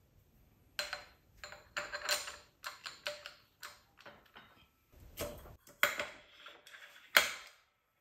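Steel synchro rings and a gear of a Graziano L140 transmission clinking and clicking against each other and the output shaft as they are slid on by hand: a run of light metal clicks starting about a second in, the sharpest two near the end.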